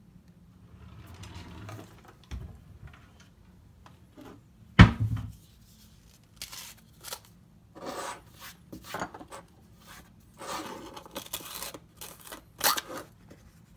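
Small objects being handled on a workbench: one sharp knock about five seconds in, then a run of short scrapes and rustles as a small plastic jar of soldering flux is picked up and handled.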